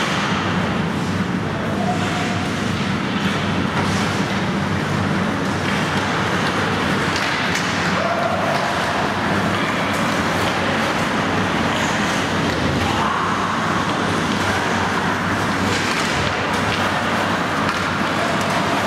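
Steady rumbling ambience of an indoor ice rink during hockey play, with a few faint clacks of sticks and puck against the ice.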